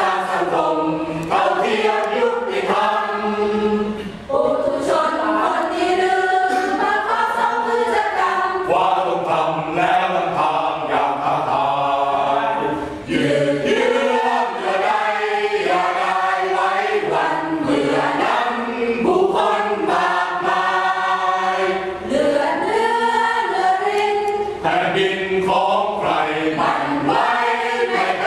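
A mixed choir of men and women singing a song together in rehearsal, with brief pauses between phrases.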